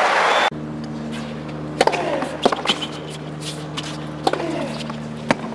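Tennis racket strings hitting the ball over and over in a rally on a hard court: about six sharp strikes, unevenly spaced, each up to a second or so apart, over a low steady stadium hum.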